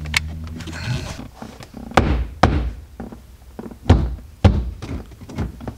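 Plastic interior trim of a BMW E36 being pushed and knocked into place by hand: several sharp, irregularly spaced thunks as the pieces and their clips seat against the car's body.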